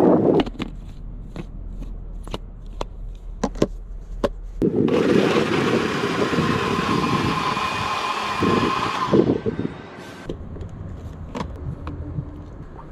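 Electric blender motor running for about five seconds with a steady whine, then switched off. It is blending a mango lassi. Scattered clicks and knocks come before and after it.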